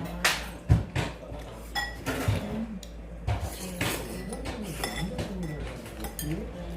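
Dishes and metal cutlery clinking and knocking together in a series of separate sharp strikes, with faint voices beneath.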